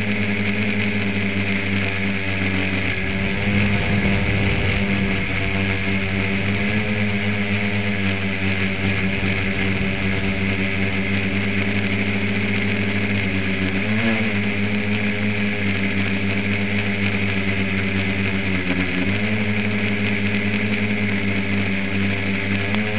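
Tricopter motors and propellers in flight, a steady multi-tone hum with a thin high whine above it, heard from a camera riding on the craft. Twice, past the middle, the pitch wavers briefly as the throttle shifts.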